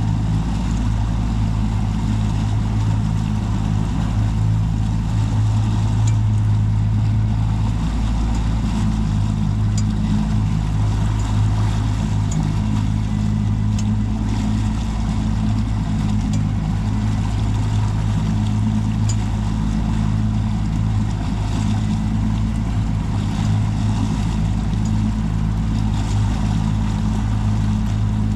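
Yamaha 300 V6 four-stroke outboard on a Pursuit 238 center-console boat running steadily under way, a low even drone, with the throttle brought up to push through a strong outgoing tidal current. A steady hiss of wind and water lies over it.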